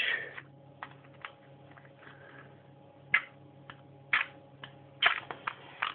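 Scattered light clicks and taps, about a dozen of them, the loudest a little after three, four and five seconds in: the handling of a box of matches while a match is got out to light the paper jet.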